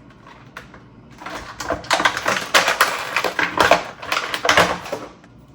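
Plastic action-figure packaging being handled and pulled apart, crinkling and crackling with many quick clicks. It starts about a second in and stops shortly before the end.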